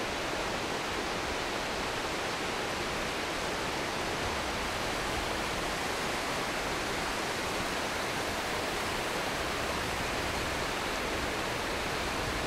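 Steady rushing of a mountain river's water, the Híjar running with a good flow.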